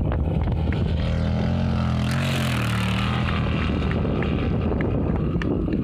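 Off-road rally jeep's engine running hard at high revs as it races along a sandy track, the engine note strongest about two to three seconds in, with a steady rushing noise throughout.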